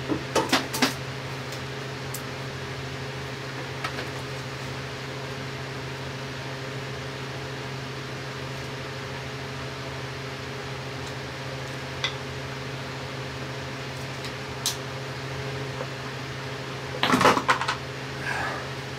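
Hand tools clicking and clattering against metal parts under a motorcycle: a quick cluster of clicks at the start, single ticks now and then, and a louder burst of clatter a couple of seconds before the end. A steady low hum runs underneath throughout.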